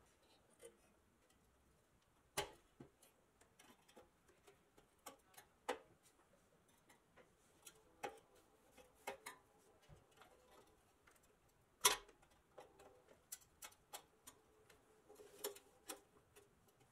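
Sparse, irregular metallic clicks and taps of a screwdriver prying and picking at the front bumper and grille of a pressed-steel 1957 Tonka toy truck cab, two of them sharper than the rest.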